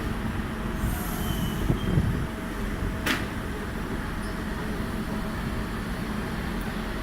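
Docklands Light Railway train running, heard from inside the carriage: a steady rumble of wheels on track, with a sharp click about three seconds in.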